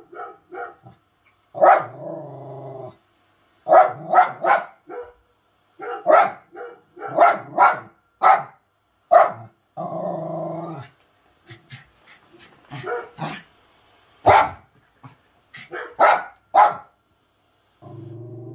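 A dog barking over and over in short sharp barks, singly and in quick runs of two or three, broken by three longer drawn-out growls lasting about a second each.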